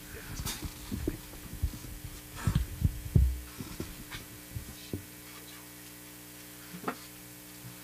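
Steady electrical hum from the stage amplification. Over it, a few dull low thumps and knocks in the first three seconds, the strongest about three seconds in, then a few scattered light clicks.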